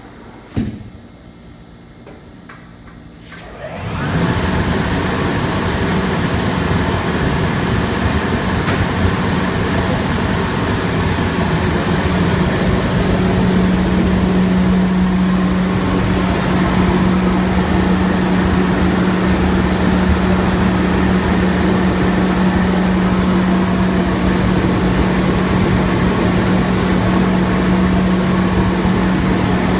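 A sharp click, then about four seconds in a blower-like machine switches on and runs steadily with a loud rushing noise; a steady low hum joins it about halfway through.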